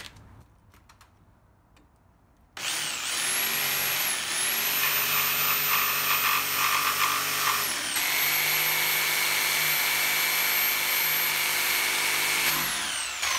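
Corded Makita jigsaw cutting a curved line through a board. It starts suddenly a couple of seconds in and runs with a high motor whine and blade chatter. It slows and picks up again twice, then winds down near the end.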